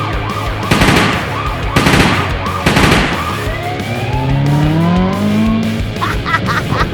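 Dubbed police-car sound effects over background music: a fast warbling siren, three short harsh bursts about a second apart, then an engine revving up with a rising pitch.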